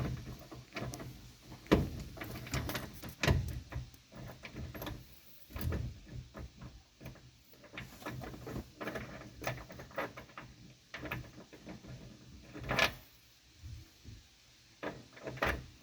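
Irregular small metallic clicks, taps and scrapes of a new ignition lock cylinder being worked into its housing while it is lined up with the slot at the back, with one sharper knock about thirteen seconds in.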